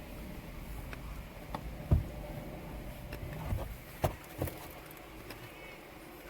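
Eating sounds: a handful of scattered light clicks and knocks from a fork and a salad container, with chewing, over a low steady background.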